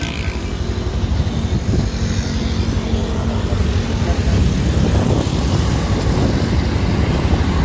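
Steady low rumble of a large bus's engine and tyre noise as the bus drives past, just after its horn tune has stopped.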